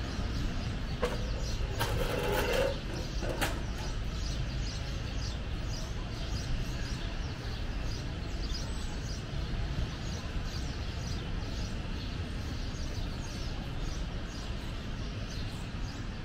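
City street ambience: a steady low traffic rumble with people talking, and short high chirps repeating throughout. A louder brief burst ending in a sharp click comes about two to three seconds in.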